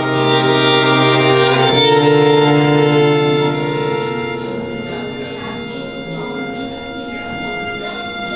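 String quartet bowing long held chords on violins and cello. The chord shifts a little under two seconds in, stays loud until about three and a half seconds in, then thins to quieter sustained notes.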